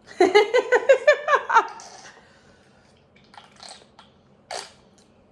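A person laughing in a quick run of short voiced bursts lasting about a second and a half. A few soft clicks and a brief noisy sound follow later.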